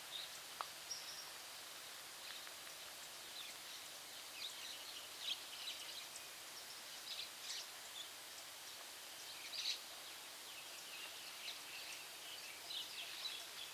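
Birds chirping outdoors: many short, scattered high calls over a steady background hiss.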